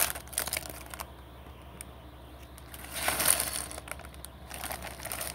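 Small plastic Lego pieces shaken out of an opened plastic polybag, clicking and clattering onto a tabletop in scattered ticks, with a denser rush of clatter about three seconds in.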